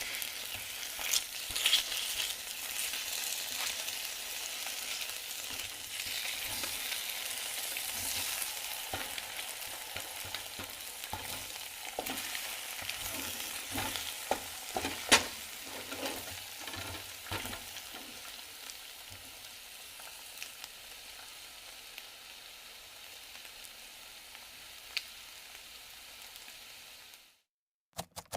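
Food frying in a frying pan: a steady sizzle with scattered sharp clicks and taps, most of them in the middle stretch. The sizzle slowly dies down, then stops suddenly shortly before the end.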